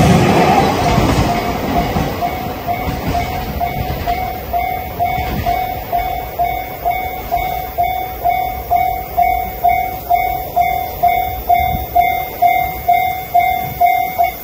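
A Japanese level-crossing warning bell ringing about twice a second, while a passing train's noise is loud at first and fades over the first couple of seconds. The bell stops near the end, as the crossing clears after the train has gone.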